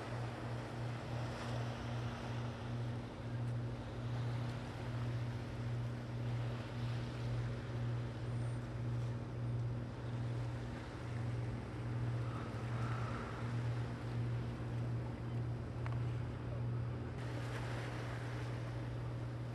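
An engine running steadily at the unloading of an otter trawler, with a low hum that throbs about once a second. Near the end the throb evens out and a hiss joins it.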